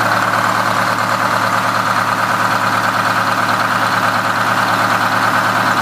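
Detroit Diesel 8V71 two-stroke V8 diesel of a 1968 GMC PD-4903 Buffalo coach idling steadily, heard up close at the open engine bay.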